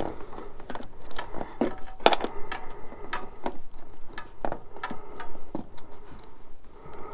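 Irregular light metallic clicks and clinks of hands and tools working at a motorcycle's clip-on handlebar and switch housing, while it is being taken off.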